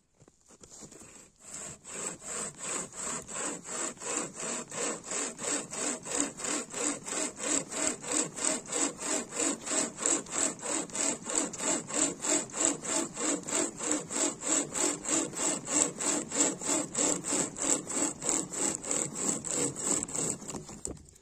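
A Mil-Tec hand chain saw, a cutting chain pulled back and forth by two hand cords, sawing through a dead log in steady, even strokes of about three a second. It starts about a second in and stops just before the end.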